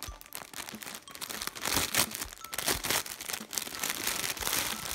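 Thin clear plastic bag crinkling irregularly as a plush toy is worked out of it by hand, loudest about two seconds in.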